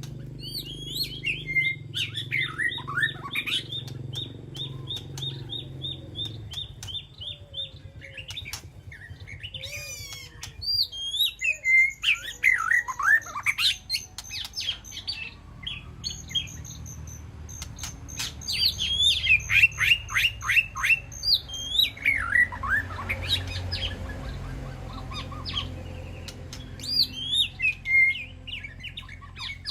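White-rumped shama singing in varied phrases: rapid runs of repeated notes, quick downward-sweeping whistles and sharp clicks, broken by short pauses. A low steady hum sits underneath.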